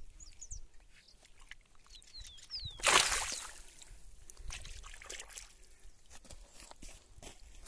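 A tararira (wolf fish) being released gives one hard tail splash in shallow muddy water about three seconds in as it kicks free and swims off, followed by light trickling and sloshing of the stirred water. A few thin high chirps sound before the splash.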